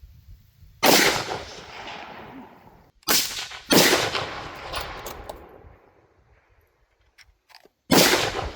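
Four gunshots, each trailing off in a long echo; the second and third come about half a second apart.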